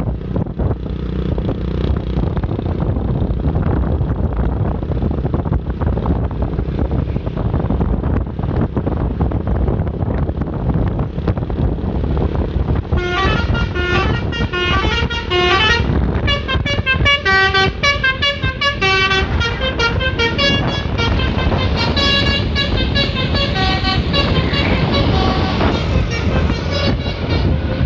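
Low road rumble and wind for the first half, then a bus's multi-note telolet air horn plays a quick melody of short, rapidly changing tones through the end.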